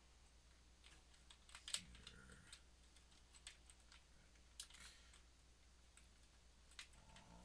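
Faint, scattered clicks of a computer keyboard and mouse over a low steady hum, the loudest click just under two seconds in.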